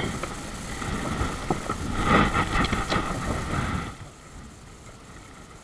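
Rustling and knocking of fishing gear being handled aboard a kayak, with a few sharp clicks, against wind and water noise; it drops to a quiet hiss about four seconds in.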